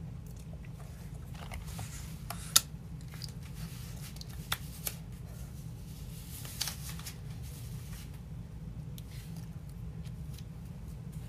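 A swim cap being stretched and pulled on over hair: scattered small squeaks, snaps and rustles of the rubbery cap, the sharpest about two and a half seconds in, over a steady low hum.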